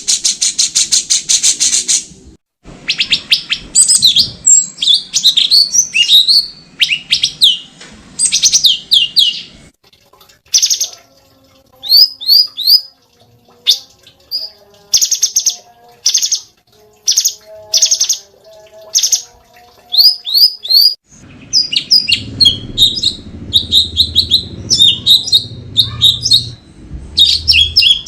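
A cucak cungkok songbird singing. It opens with a fast, buzzing trill, then gives a long series of sharp, high whistled chirps and short phrases with brief pauses between them.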